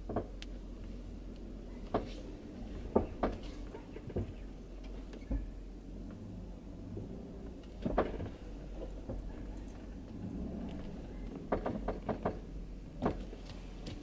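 Creaking and popping from a Lexus IS300's front suspension as the steering wheel is turned, heard from inside the cabin: scattered sharp pops, with a quick cluster about twelve seconds in, over a low steady hum. The owner suspects a worn driver-side front wheel bearing or a worn suspension bushing.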